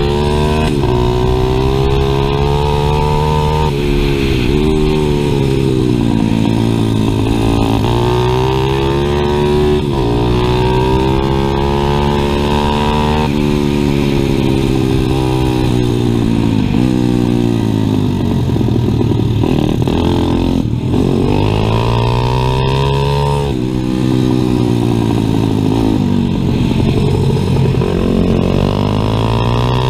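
Single-cylinder 140 cc four-stroke pit bike engine heard from on board while racing, its note climbing under throttle through the gears and falling back into the corners, over and over, with sharp drops in pitch at the shifts.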